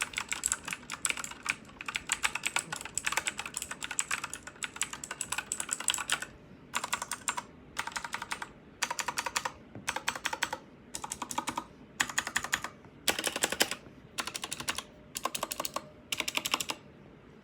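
Redragon K552 mechanical keyboard with clicky blue switches being typed on: a fast, continuous run of keystrokes for about six seconds, then short bursts of rapid clicks separated by brief pauses.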